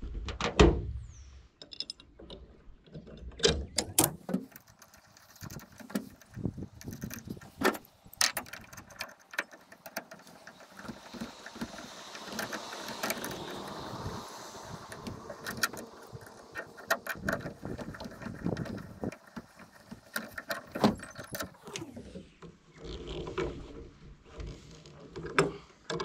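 Hand tools clicking and clinking on a metal roof-rack awning bracket as a socket wrench is worked on the mounting bolts, in many short, irregular knocks.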